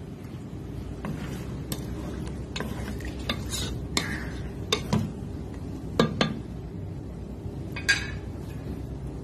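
A wooden spatula stirring chicken curry in a cooking pot, with about a dozen irregular knocks and scrapes as it strikes the pot's sides, over a steady low hum.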